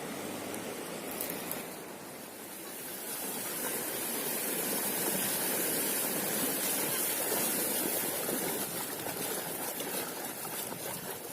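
Fast river water rushing steadily, a continuous hiss that grows louder a few seconds in.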